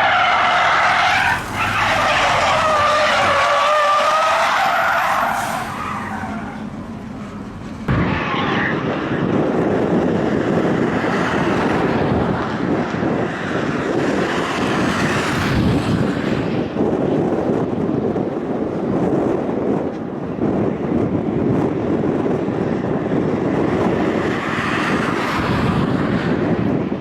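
A car drifting: its tyres squeal in a long, wavering screech for the first few seconds. About eight seconds in, the sound jumps to loud engine revving mixed with tyre noise.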